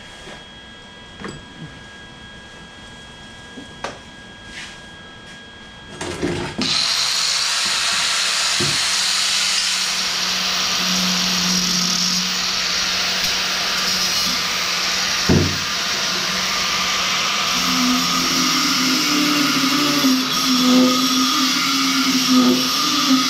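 A few light knocks as tools are handled. About six seconds in, an angle grinder spins up and runs steadily, grinding down fresh welds on a steel exhaust pipe.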